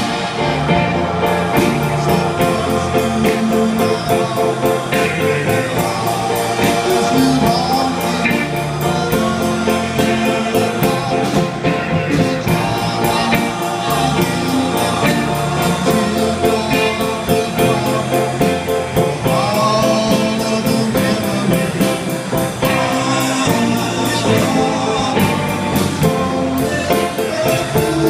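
A live band playing a song: drum kit keeping a steady beat and electric keyboard, with singing over it.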